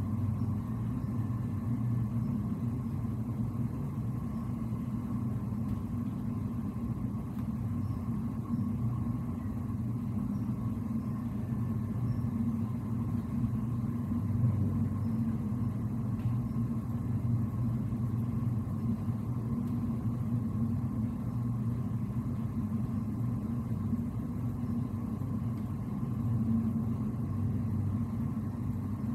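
Steady low rumble and hum of a ship's engine and machinery, heard on the bridge while underway, with a faint high steady tone above it.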